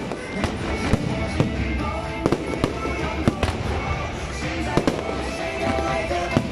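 Aerial fireworks bursting overhead in irregular sharp bangs, about one every half-second to second, with music playing underneath.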